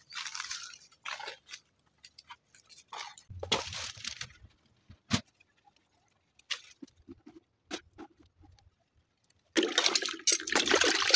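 Dishes being hand-washed in a plastic bucket of soapy water: scattered splashes and a sharp knock or two, then steady sloshing and swishing of water near the end.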